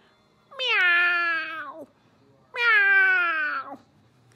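Two long meows about a second apart, each drawn out and falling slightly in pitch toward its end.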